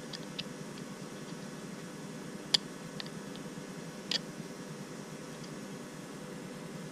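Scattered light clicks and ticks of a small screwdriver turning the contrast potentiometer on an LCD keypad shield, the sharpest about two and a half seconds in and another about four seconds in, over a steady low hum.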